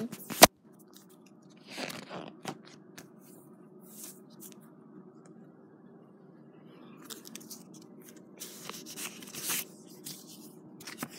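Paper rustling and crinkling as the stiff pages of a book are handled and turned, in scattered short spells over a faint steady hum. A sharp knock comes about half a second in.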